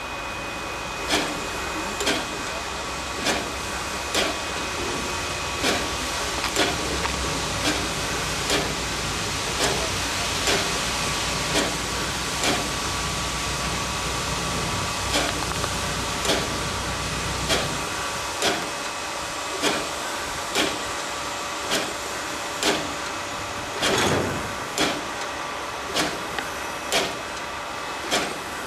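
Steam locomotive standing in steam: a steady hiss with a sharp, regular knock about once a second. A low rumble underneath stops about 18 seconds in, and there is a louder burst a few seconds later.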